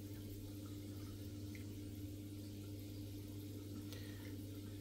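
Steady low hum of aquarium equipment running in the cabinet beneath the tank, over a faint even hiss.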